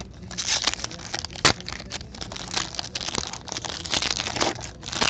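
Foil wrapper of a hockey trading-card pack crinkling and crackling as it is torn open by hand, with a sharp loud crackle about a second and a half in.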